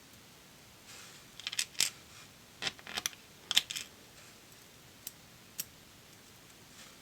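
Light metallic clicks and ticks of small lock parts and a pick or tweezers being handled on a bench: a few quick clusters in the first four seconds, then two single ticks.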